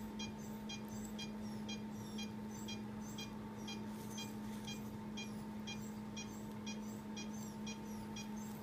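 Anaesthesia patient monitor sounding short, even beeps about twice a second, over a steady low hum from the equipment.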